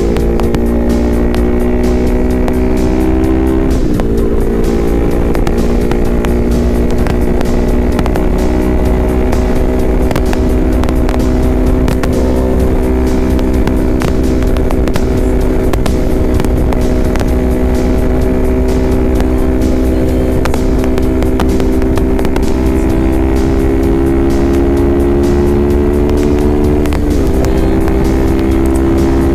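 Motorcycle engine at highway cruising speed with wind rushing over the microphone. The engine note climbs slowly and drops sharply at a gear change about four seconds in, and again near the end.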